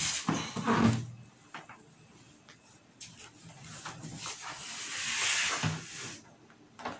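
Handling noise: a rustling hiss that swells and fades a few seconds in, with a few light clicks, including a sharp one near the end.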